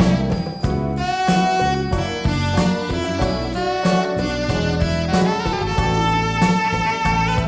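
Instrumental jazz played live: a saxophone carries the melody over bass and drums, ending in a long held note near the end.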